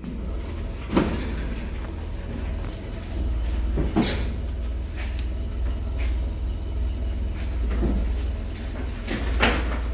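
A cow shifting its hooves on the straw-covered bed of a pickup truck during unloading: a few sharp knocks and thuds from its hooves and from the bed's metal rails, about four in all, over a steady low rumble.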